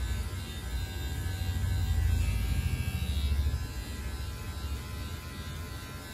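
Electric hair clipper with a 1.5 guard, lever open, buzzing steadily as it is run up through the hair to blend the sides. It gets louder for a stretch in the middle.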